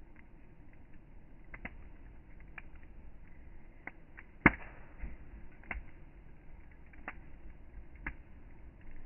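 Wood campfire crackling, with scattered sharp pops and one much louder pop about halfway through, over a low steady rumble.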